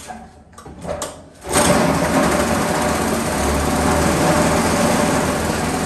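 Small petrol engine of an old Atco cylinder lawnmower being pull-started. A few rattling pulls, then it catches about a second and a half in and runs steadily and loudly.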